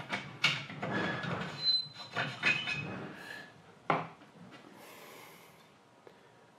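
Metal parts of a slow-running, water-cooled sharpening machine clattering and scraping as a fitting is moved to the machine's back and set in place, ending with a sharp knock about four seconds in. A short soft hiss follows.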